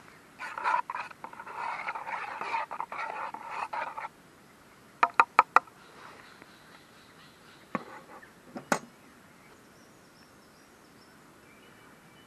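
A metal folding spoon stirring and scraping inside a stainless steel camping mug, then tapped four times in quick succession on the rim, followed by two single metal clicks.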